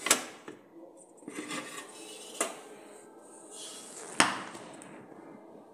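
Metal cake tin being lifted out of a large metal pot with a cloth and set down: three sharp clanks and knocks, the loudest just after the start and at about four seconds, with scraping and cloth rustling between.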